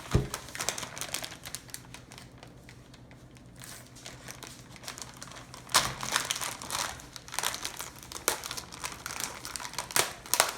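Plastic wrapper of a packet of Oreo cookies being torn open and handled, crinkling and crackling in irregular bursts, with a thump at the start and louder crackles around six and ten seconds in.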